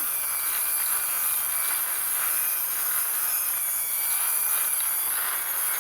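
Plastic toy car being pushed by hand across a hard floor, its wheels rolling with a steady hiss and a faint squeak that swells and fades about once a second.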